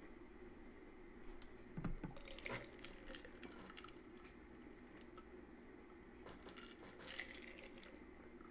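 Near silence: quiet room tone with a steady low hum, broken by a few faint clicks about two seconds in and again near the end.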